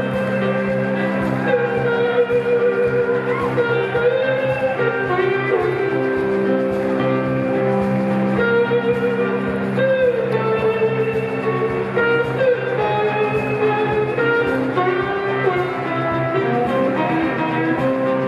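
Live blues-rock band playing an instrumental passage: an electric guitar lead with long, wavering, gliding notes over drums and a steady cymbal beat.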